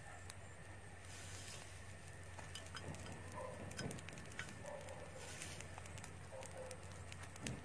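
Rice straw fire catching, with faint, irregular crackling as the straw burns.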